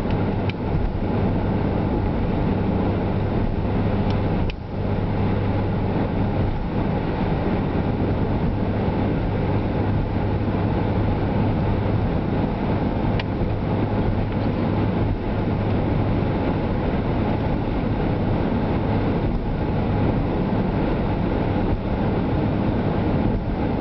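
Steady road and engine noise of a car driving at highway speed, heard inside the cabin, with a steady low drone underneath. The noise dips briefly about four and a half seconds in.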